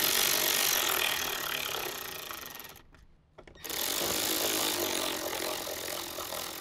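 Cordless screwdriver running in two stretches of about three seconds each, driving in two screws, with a short pause between them.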